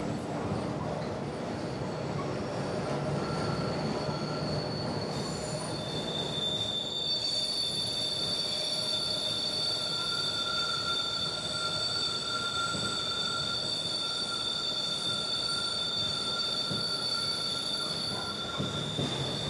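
Subway train running, with a steady rumble and a high wheel squeal of several held tones that sets in a few seconds in and lasts until near the end.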